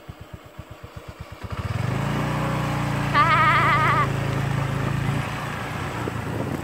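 Motorcycle engine pulsing slowly at low revs, then picking up about a second and a half in to a louder, steady drone as the bike rides along. A brief wavering high-pitched sound lasts about a second, a little after three seconds in.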